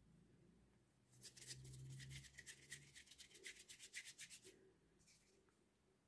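Faint, quick rubbing strokes by a hand, about seven a second, starting about a second in and stopping after about three and a half seconds.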